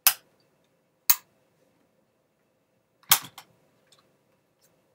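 Sharp plastic clicks from a Dell Inspiron 15R 5520 laptop's battery latch and battery being released and lifted out: one click right at the start, another about a second in, and a quick double click about three seconds in.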